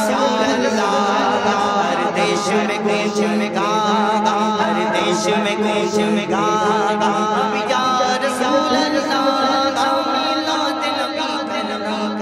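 A man singing a naat, an Islamic devotional song, solo into a handheld microphone over a sound system. He holds long, wavering, ornamented notes.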